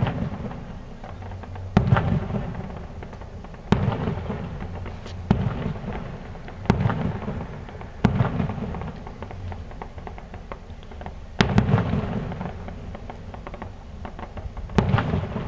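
Aerial firework shells bursting: about eight sharp bangs, one every second or two with a longer gap in the middle, each trailing off in a rolling echo.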